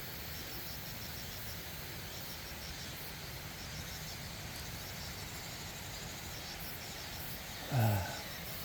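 Steady rush of a mountain stream, with an insect or bird chirping high and fast, about four chirps a second. Near the end, a brief, loud falling vocal sound from a man.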